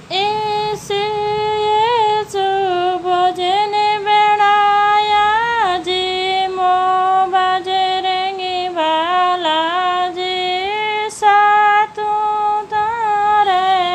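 A woman's voice singing a Marwadi devotional bhajan to Balaji (Hanuman) without accompaniment: a single melodic line drawn out on long, sliding vowels.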